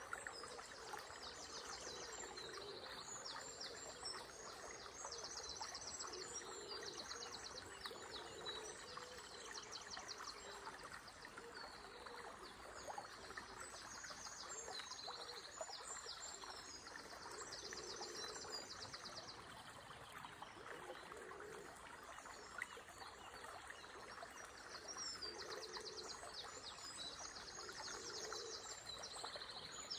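Several songbirds singing repeated trilling, chirping phrases over a steady rush of flowing water.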